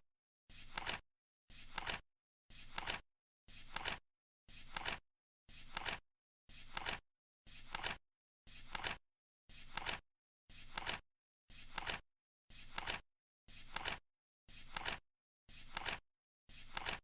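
Flip clock counting down: a short flap of the number card flipping over once every second. Each flip lasts about half a second and is loudest at its end.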